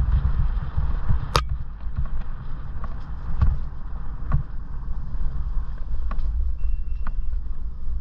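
Bafang-powered Orange Gyro e-bike riding over a rough dirt bridleway: a low rumble from wind and the uneven ground, with the bike rattling and knocking over bumps. The sharpest click comes about a second and a half in.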